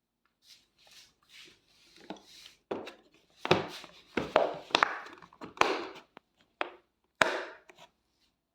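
Handling noise: a run of sharp knocks and clicks with rubbing between them, soft at first and loudest over the middle and later seconds, as of hard objects being moved about and set down.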